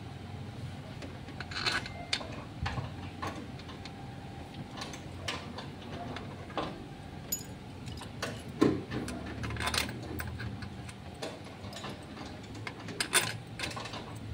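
Irregular light metallic clicks and clinks of hand tools against metal engine parts, with a couple of louder knocks about halfway through and near the end, over a low steady hum.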